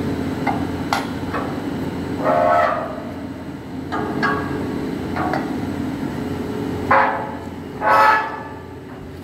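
A steel pry bar levering a heavy fabricated steel beam frame along on steel pipe rollers: a few sharp metal knocks, then about five short, harsh squeals of metal on metal as the frame is pushed forward. A steady low hum runs underneath.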